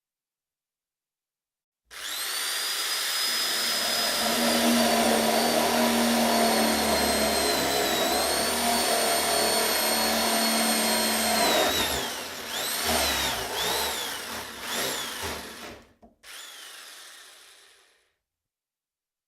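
Electric drill motor starting about two seconds in and running at a steady high whine for about ten seconds, dipping in speed once midway. It then surges up and down in speed several times, stops briefly, and gives one last short burst that spins down to a stop.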